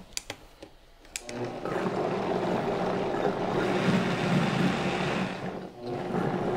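Countertop blender motor starting about a second in after a few clicks of the dial, then running steadily while blending green salsa thinned with water. It cuts out briefly near the end and starts again.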